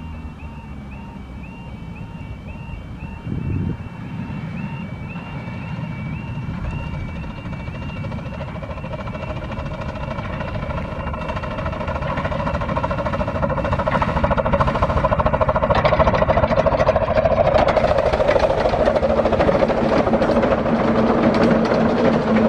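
A 15-inch gauge steam locomotive approaching at speed, its rapid exhaust beats and the clatter of the train on the rails growing steadily louder.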